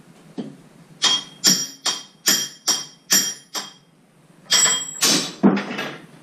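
Hand hammer striking a red-hot rivet blank on a small anvil, heading a rivet. About seven ringing metallic blows at a little over two a second, a short pause, then four more.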